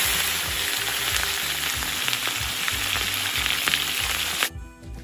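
Raw cubes of meat sizzling loudly as they fry in very hot sunflower oil in a cast-iron kazan. The sizzle cuts off suddenly near the end, leaving quiet background music.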